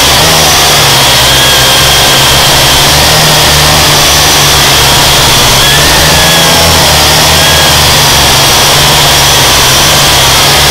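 Small quadcopter drone's motors and propellers running close to its onboard camera microphone: a loud, steady whirring with a high whine that wavers up and down in pitch as the drone is buffeted by high wind.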